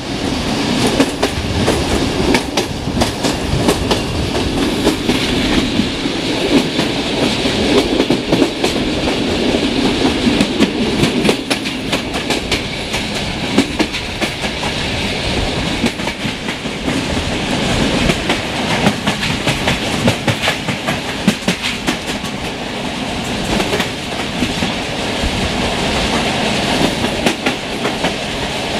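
Passenger train running at speed, its coach wheels clattering irregularly over rail joints and points over a steady rushing rail noise.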